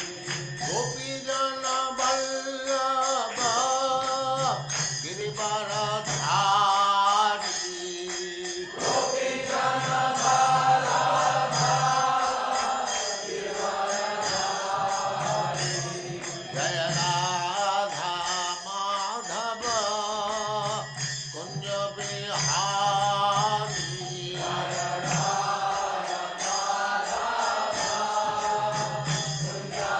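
A devotional mantra chant sung with instrumental accompaniment, the voice moving in long sung phrases over a low sustained tone that comes and goes every few seconds.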